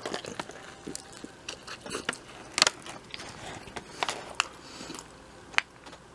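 A person chewing a mouthful of toasted sub sandwich, with irregular small clicks and crunches and a few sharper ones.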